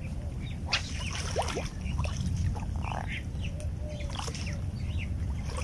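Scattered short bird chirps and quick whistled calls over a steady low rumble.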